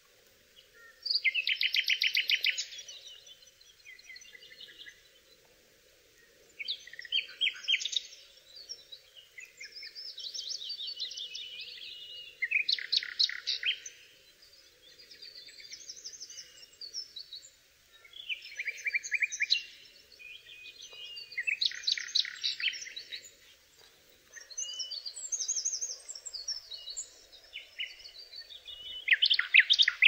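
Common nightingale singing: a run of varied short phrases, each a quick series of repeated notes, separated by brief pauses.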